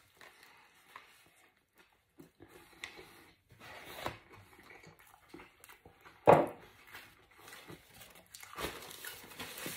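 A person chewing a big mouthful of burger, with small mouth clicks and onion rings being picked out of a takeout tray. There is a short, louder sound about six seconds in.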